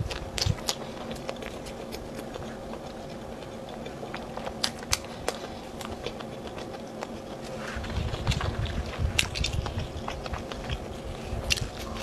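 Close-miked mouth sounds of a person chewing fried food: scattered wet clicks and smacks, turning into denser, heavier chewing from about eight seconds in.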